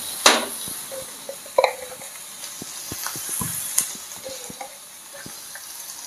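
Shrimp, onion and garlic sizzling steadily in a frying pan, with a scatter of light clicks and knocks as a pepper container is handled and its cap taken off and set down.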